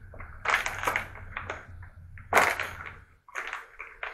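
Plastic food packaging crinkling in several short, sharp rustles as it is tugged and torn at to get it open.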